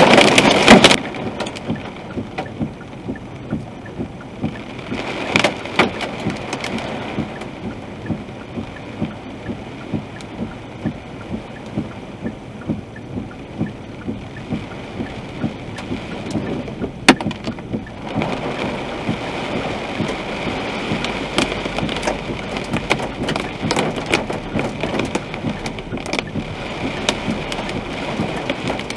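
Heavy rain pelting a car's roof and windshield, heard from inside the car, with many sharp individual hits among the steady patter. It is loudest in the first second.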